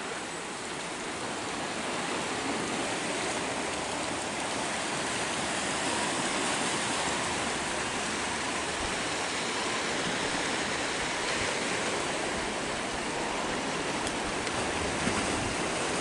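Steady, even rushing of ocean surf washing over rocks at the foot of sea cliffs.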